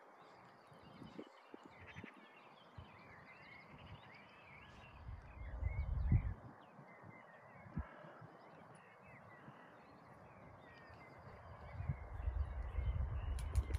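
Birds singing and chirping throughout, with low gusts of wind rumbling on the microphone about five seconds in and again near the end.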